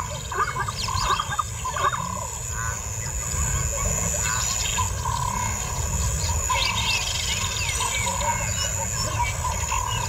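Wild birds chirping and calling in quick short notes, over low growling from lions during a mating attempt.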